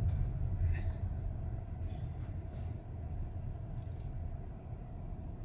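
Steady low rumble of a moving car heard from inside the cabin: engine and tyre noise while driving.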